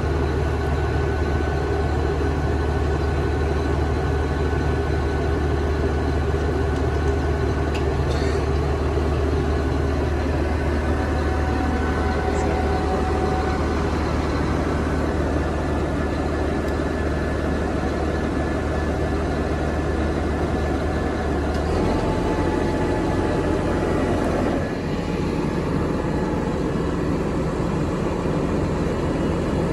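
A tractor's diesel engine idling steadily with a deep, even hum; the engine note shifts abruptly about 22 seconds in.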